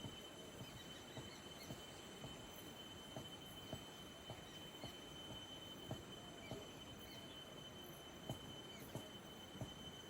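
Faint rural outdoor ambience: a steady high-pitched insect drone holds one tone throughout, over a soft hiss. Scattered soft ticks come about once or twice a second at irregular intervals.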